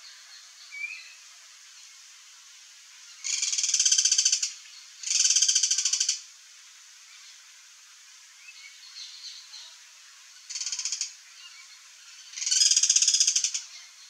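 Guira cuckoos giving rapid rattling calls in four bursts: two close together a few seconds in, then a short one and a longer one near the end.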